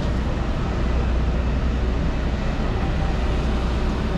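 Steady city street noise: a low rumble of traffic under an even hiss of wind and rain.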